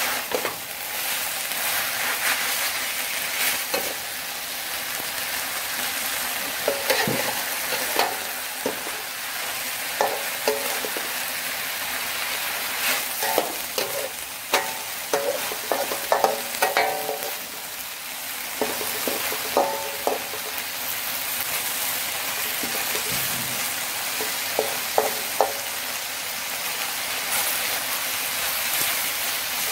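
Chicken livers and water spinach sizzling in a metal wok while a metal spatula stirs and scrapes them. The spatula's knocks and clanks against the pan ring out in quick clusters, thickest in the middle.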